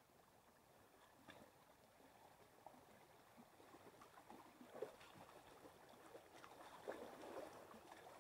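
Near silence: faint running water of a shallow creek, with a few soft knocks.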